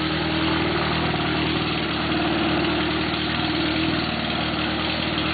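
Yamaha ATV engine running steadily under load as the quad works through deep mud.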